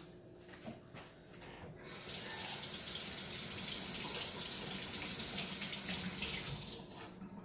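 Kitchen tap running steadily for about five seconds, turned on about two seconds in and shut off near the end.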